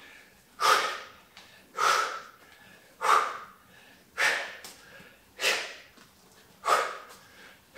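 A man breathing out hard through the mouth, one sharp exhale with each swing of a Bulgarian bag during a hard set: six short hissing breaths, evenly spaced about a second apart, each cut short and fading quickly.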